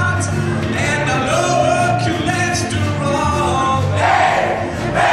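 A song playing: a singer over a backing band with a steady bass line.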